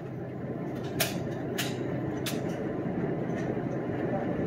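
Pistol magazines being inserted, three sharp clicks over a steady background rumble, about one, one and a half and two seconds in.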